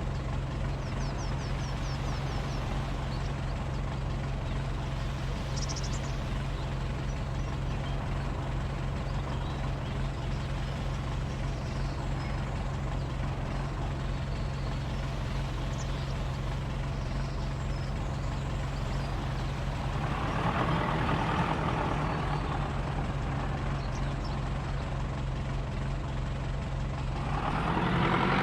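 A large engine running steadily at constant speed, with a low even drone. It swells louder for a couple of seconds about 20 seconds in, then rises again near the end.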